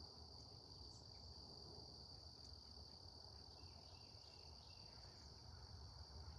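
Faint, steady high-pitched trill of crickets running without a break, over a low rumble.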